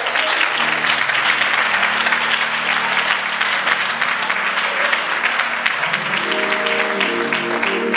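Congregation applauding, with held instrumental chords coming in under the clapping about half a second in and moving to a higher chord about six seconds in.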